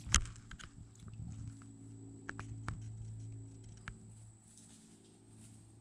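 Small fishing reel on a micro fishing rod clicking and rattling as the line is cast and then reeled in. There is one sharp click just after the start, then a scatter of light clicks.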